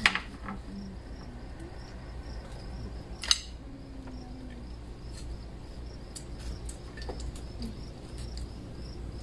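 Crickets chirping steadily in a regular pulse, about three chirps a second. Two sharp clicks stand out, one at the very start and one about three seconds in.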